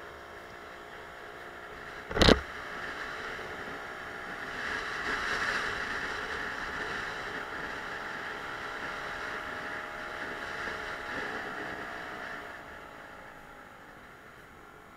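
Suzuki Let's 4 moped scooter's small single-cylinder four-stroke engine running at a steady note under way, with road noise, then dropping in pitch about eleven seconds in as the scooter slows. A single sharp thump about two seconds in is the loudest sound.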